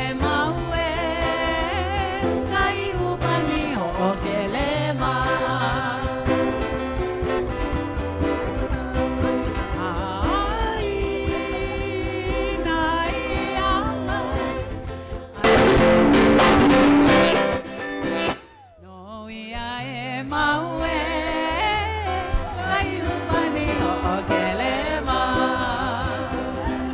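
Live Hawaiian song: a sung melody with other voices joining in, over strummed plucked strings and a steady beat. About two-thirds of the way in there is a very loud burst lasting about two seconds. The music then drops away for a moment and comes back.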